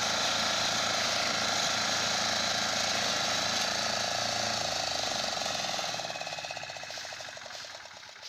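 Walk-behind power reaper's small engine running hard with its cutter bar working through standing crop, then throttled back about six seconds in, dropping to a slower, quieter idle with an even chugging beat.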